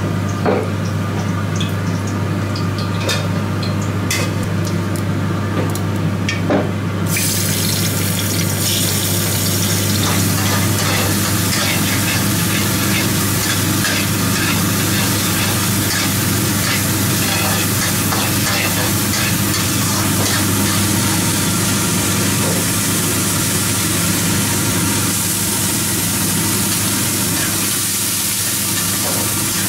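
Knife chopping on a cutting board in sharp clicks for the first several seconds. About seven seconds in, a steady loud sizzle starts suddenly as onion and tomato fry in a wok, stirred with a metal spatula. A steady low hum runs underneath throughout.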